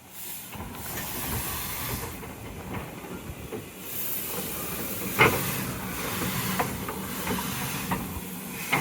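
Steam train of old branch-line coaches hauled by a Hawthorn Leslie locomotive, braking: a steady hiss and rumble of the running train, broken by scattered clanks, with one sharp knock about five seconds in.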